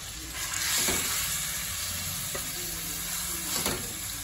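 Spice-marinated chicken pieces sizzling as they shallow-fry in hot oil in a pot, the sizzle swelling about half a second in. A few light knocks as a hand turns the pieces over.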